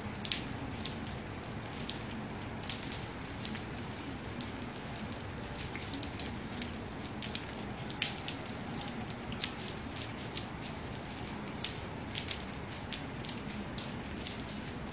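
Light rain during a weak thunderstorm: single raindrops ticking at irregular times, one or two a second, over a steady hiss.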